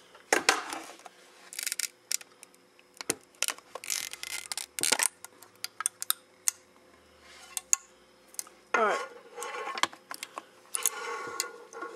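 Apple Magic Mouse packaging being opened and handled: a string of sharp clicks and taps with short bursts of rustling and scraping, and a brief squeak of plastic about nine seconds in.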